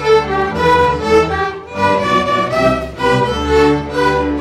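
Student string orchestra playing, violins carrying a melody in bowed notes.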